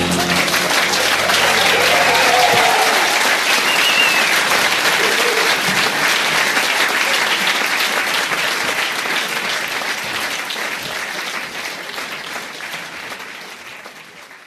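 An audience applauding, with the last low note of the music dying away in the first couple of seconds. The applause fades out near the end.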